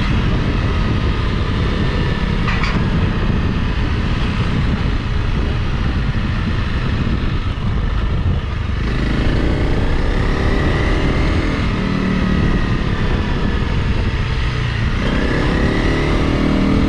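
Honda CRF Rally's single-cylinder engine running as the motorcycle is ridden. It rises in pitch as it accelerates about nine seconds in, and again near the end.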